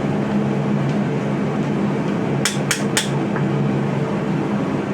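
Three quick, light taps about two and a half seconds in: a mallet gently straightening the twisted steel knife handle on a wooden stump. A steady drone runs underneath.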